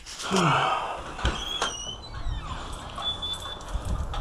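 A door being opened: a short low falling creak at the start, then a couple of sharp clicks and thin squeaks as it moves.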